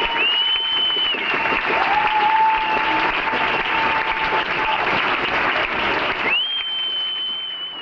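Audience applauding, with a high whistle that slides up and holds for about a second near the start and again near the end.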